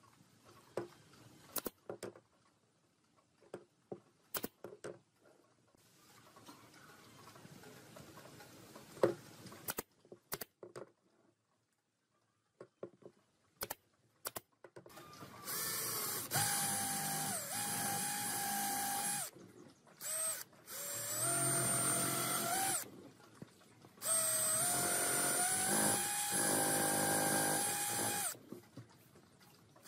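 Wooden pieces knocked and handled, with a few sharp shots from a pneumatic brad nailer, then a cordless drill boring into a pine board in four runs with short pauses, its motor whine stepping up in pitch as the trigger is squeezed harder.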